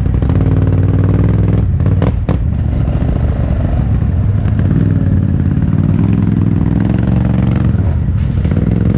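A 2005 Yamaha Bruin 350 4x4 ATV's single-cylinder four-stroke engine running under way on the trail, its pitch rising and falling with the throttle. A few clattering knocks come about two seconds in and again near the end.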